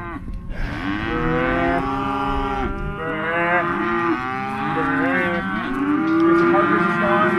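Several cattle mooing at once in overlapping long calls, one after another without a break: calves and cows bawling during weaning and sorting.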